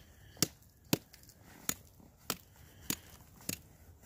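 Geologist's rock pick striking rock: about seven sharp, separate blows at a steady pace, roughly one every half second or so, chipping out samples.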